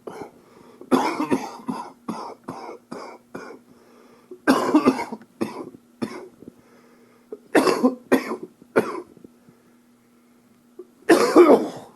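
A man coughing in four fits, each a hard cough followed by several shorter ones, during an upper respiratory infection.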